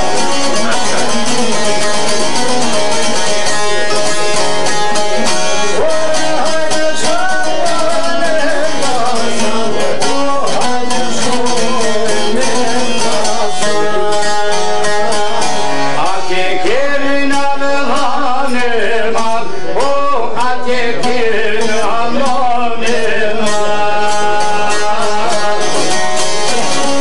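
Albanian folk music played live on two plucked string instruments, a large round-backed lute and a long-necked lute, with quick plucked melody lines and a voice singing through the middle stretch.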